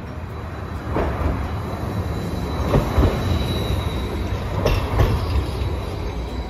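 Hiroshima Electric Railway Green Mover low-floor tram passing close by, rumbling on street track. Its wheels knock over the rail joints once about a second in, then in two close pairs near the middle and toward the end, with a thin high whine.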